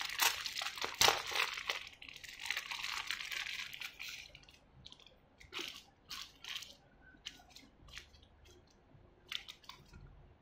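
Thin plastic packaging crinkling as it is pulled off a small plastic figure, dense for the first few seconds. After that come a few scattered light clicks and taps as the clear plastic dome and base are handled.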